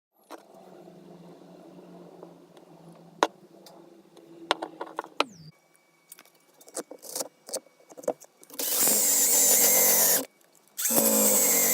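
Handheld power tool running in two short bursts, the first about a second and a half long and the second starting about a second later. Before them, a low hum with scattered clicks fades out with a falling pitch about five seconds in, followed by sharp clicks and knocks.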